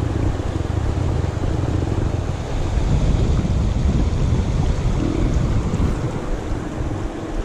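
Shallow, fast river rushing over a stony bed, with wind buffeting the microphone as a low, uneven rumble.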